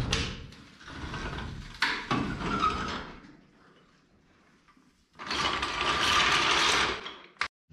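Hydraulic floor jack being worked under the front of a pickup, its metal parts rattling and clattering in three stretches, with a quiet pause of about two seconds before the last.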